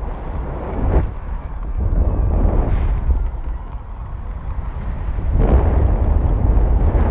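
Wind buffeting the microphone of a GoPro carried aloft on a helium balloon: a loud, low rumble that swells in gusts, about a second in, around three seconds, and again over the last two seconds.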